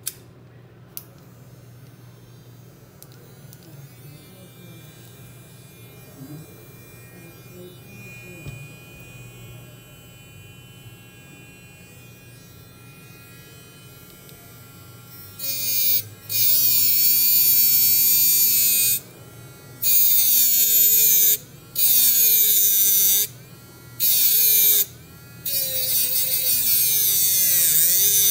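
Small handheld electric grinder running in five short bursts starting about halfway through, its high whine dipping and recovering in pitch within each burst as it takes load. Before that, only a low steady hum.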